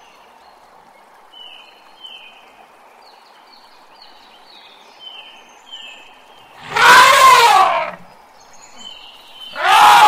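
Young elephant trumpeting twice, with its trunk raised: a long loud blast about seven seconds in and a shorter one near the end. Faint high bird chirps come in between.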